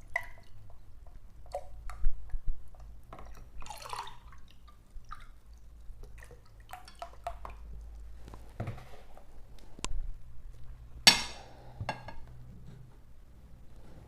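Scattered light taps and clinks of a glass and dishes, with a short liquid sound about four seconds in. The loudest knock comes about eleven seconds in.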